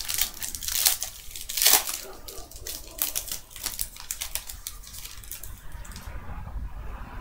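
Foil wrapper of a trading card pack crinkling and tearing as it is opened by hand. It is a fast, irregular crackle with a couple of louder rips in the first two seconds, growing quieter near the end.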